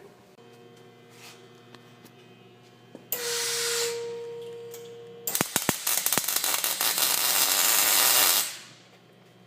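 Metalwork on a truck cab's cab mounts, most likely welding. A hiss with a steady hum starts suddenly about three seconds in, then gives way to about three seconds of loud crackling hiss full of rapid clicks.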